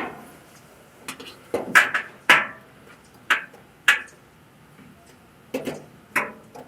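Irregular metallic clinks and knocks, about nine of them with short ringing tails, as the replacement dryer door switch and its wiring are worked into place inside the dryer's sheet-metal cabinet.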